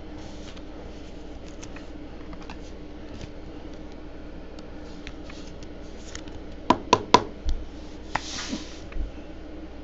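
Trading cards and a clear plastic card sleeve being handled: three sharp taps in quick succession about two-thirds of the way in, then a brief rustle of a card sliding against plastic and one more tap.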